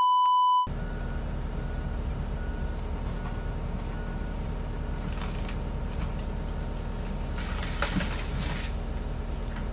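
A short, loud pure-tone bleep, then a heavy vehicle or machine running steadily, with a faint beep repeating a little more than once a second for the first few seconds and a few light knocks later.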